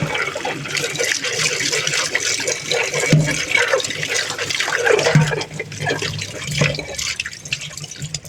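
Dishwashing at a kitchen sink: tap water running steadily over the dishes, with a few dull knocks of dishes against each other, about three, five and six and a half seconds in. The water thins out near the end.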